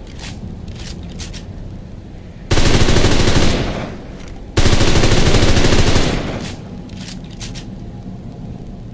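MP38 submachine gun (9 mm Parabellum) firing two full-auto bursts, each a little over a second long, a second or so apart, each trailing off into a short echo. Faint scattered cracks before and after.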